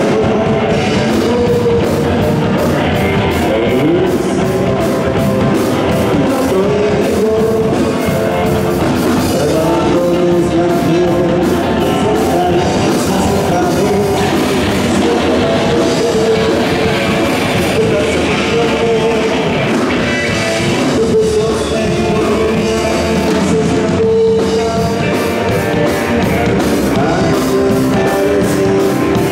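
Live rock band playing loudly and steadily: a male singer over electric guitar, keyboard and drum kit.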